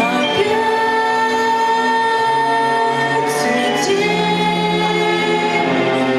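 Music: a woman singing long held notes over instrumental accompaniment.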